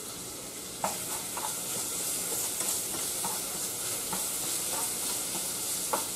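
Bacon frying in a saucepan, a steady sizzle that gets louder about a second in, with the utensil stirring it scraping and tapping against the pan now and then.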